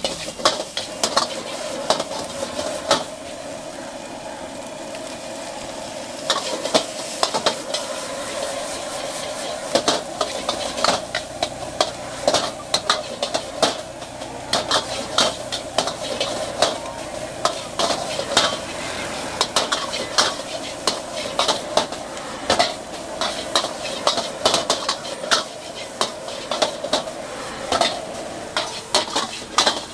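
Stir-frying in a wok: food sizzling over the heat while a metal ladle and spatula scrape and clack against the pan in quick, irregular strikes.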